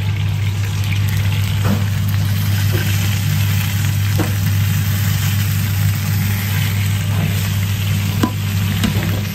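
Pan-fried pork buns (shengjian bao) frying in oil in a wide flat pan, the oil sizzling steadily. There is a constant low hum underneath and a few faint knocks.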